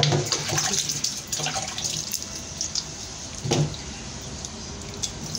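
Water splashing and dripping as it is poured from a plastic dipper over a wet cat and rubbed into its fur by hand, with a brief low sound at the start and another about two-thirds of the way through.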